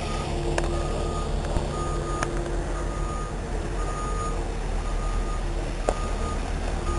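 Heavy vehicle's reversing alarm beeping about once a second, each beep about half a second long, over the steady low drone of its engine, with a few sharp clicks.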